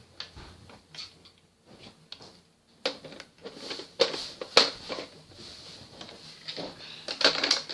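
Plastic parts of a Nerf Retaliator blaster being handled and fitted together: scattered hard plastic clicks and knocks, a few of them sharper, over quieter handling noise.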